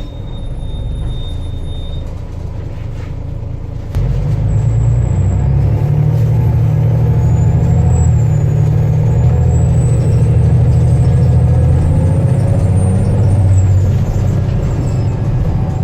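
Volvo B7TL bus's turbodiesel engine pulling under load, its low note growing louder about four seconds in, with a high turbo whistle rising in pitch over several seconds and dropping away near the end.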